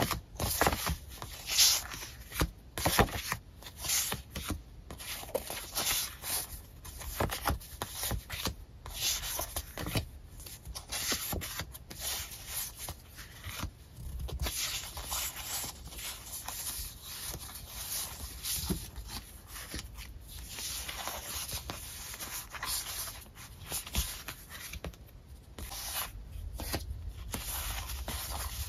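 Paper sticker sheets being leafed through and sorted by hand, sliding and rubbing against each other in irregular rustles, the sharpest in the first few seconds.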